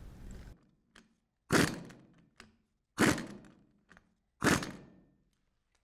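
Three short bursts of a power impact wrench, about a second and a half apart, running down the bolts that hold the suction and discharge blocks to a Kimray glycol pump body. Faint clicks come between the bursts.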